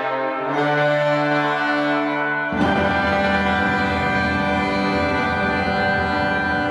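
Wind ensemble playing slow, sustained chords. About two and a half seconds in, lower instruments join for a fuller chord that is held.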